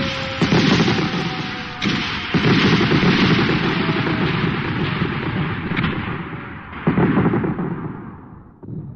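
Bombing and gunfire sound effects: a dense rumble of explosions and shots with about four heavy blasts, and a faint tone slowly falling in pitch beneath it, fading out near the end.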